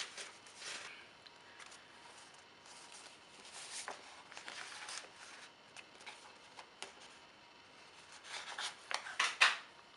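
Paper sticker sheets rustling and sliding against one another as they are leafed through and moved, in short scattered bursts, loudest near the end.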